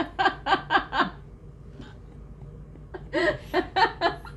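A woman laughing in two bouts of short, rhythmic 'ha-ha' pulses, about four a second, with a pause between them.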